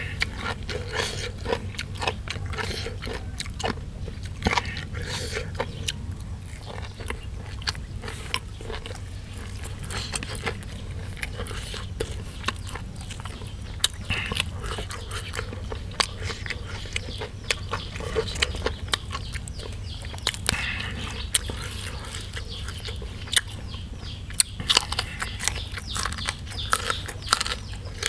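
Close-up chewing of raw vegetables and beef larb, with frequent short crisp crunches and wet mouth clicks over a steady low hum.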